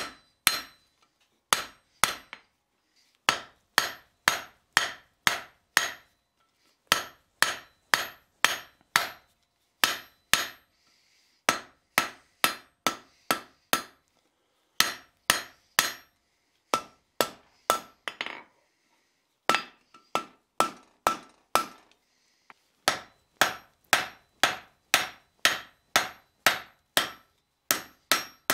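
Hand hammer striking a red-hot steel bar on an anvil, drawing out the taper of a forged hook. The blows come in runs of about two to three a second, each a sharp strike with a brief metallic ring, with short pauses between runs.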